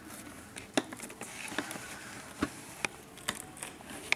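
Sharp, irregular clicks and small knocks, about six in all, from a tool prying at the plastic retaining washers that fasten a toy to its cardboard packaging insert.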